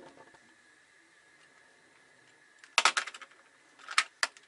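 A few sharp clicks, a quick cluster just under three seconds in and two more near the end, as the second burner of a two-burner gas stove is lit, with a faint steady high tone underneath. The burners lighting show gas getting through the newly installed 12 V solenoid valve.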